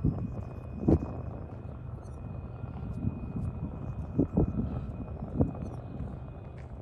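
Freight train rolling past: a steady low rumble with a few irregular clunks from the cars' wheels, the loudest about a second in.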